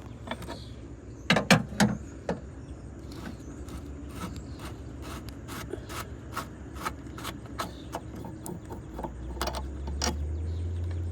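Metal clicks and clinks of a large adjustable wrench working the nut off a windshield wiper pivot housing: a few louder knocks about a second and a half in, then lighter ticks roughly twice a second as the nut is turned.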